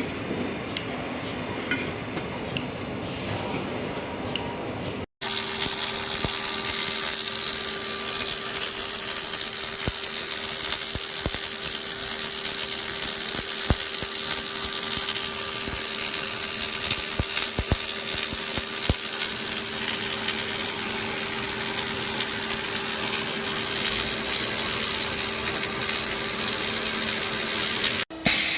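Factory machinery at work. A few seconds of light metallic clinking, then after an abrupt cut a machine runs steadily with a loud hiss and a constant hum. It cuts off suddenly near the end.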